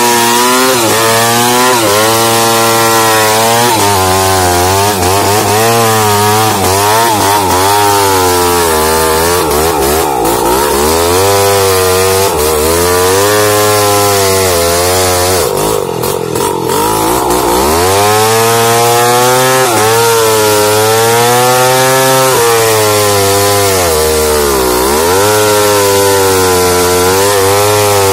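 New West 707 chainsaw cutting into wood, its engine speed rising and falling repeatedly as the bar works through the cut. The revs dip and recover under load, most deeply twice in the second half.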